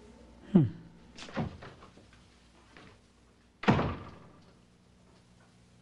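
An interior door opened with a sharp thunk, then slammed shut with a loud bang nearly four seconds in.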